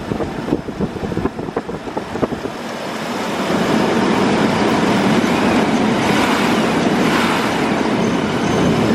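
1998 GMC Sonoma's freshly installed 4.3 Vortec V6 running after its first start, without a rod knock. Irregular clicks over the first few seconds, then it runs louder and steady from about three seconds in.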